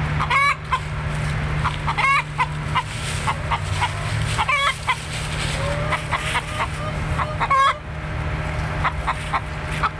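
A flock of backyard hens clucking, with a few drawn-out calls and many short clucks, over a steady low rumble.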